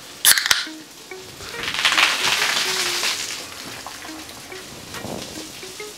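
A can of lager cracked open with a sharp pop and hiss. About a second and a half later the beer gushes out of the can in a long, loud fizzing spray.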